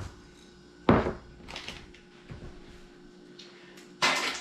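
Kitchen items being handled on a counter: a sharp knock about a second in, a few light clicks, then a louder clatter near the end.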